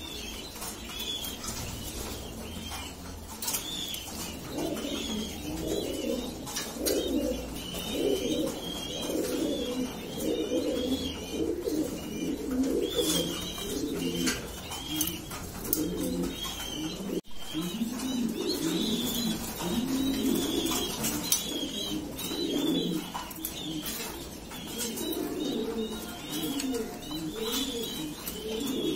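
Pigeons cooing in repeated low, warbling phrases, over a steady run of high, thin squeaks from squabs begging as they are fed.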